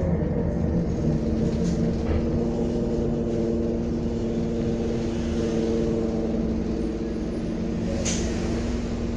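Optare Solo bus's diesel engine running at steady revs, heard inside the passenger saloon as a constant hum over low rumble. A brief sharp high-pitched noise comes about eight seconds in.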